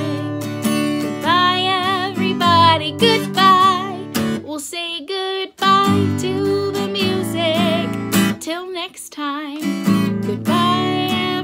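A woman sings a slow children's goodbye song over a strummed acoustic guitar; the guitar drops out briefly about halfway through and again a little later while the voice carries on.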